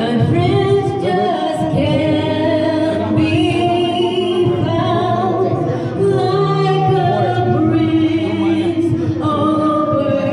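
A woman singing through a microphone over backing music, her voice holding long, gliding notes.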